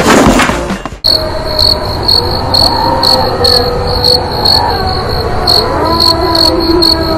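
Music cuts off abruptly about a second in, and a cricket chirps steadily after it in a high, even rhythm of about three chirps a second.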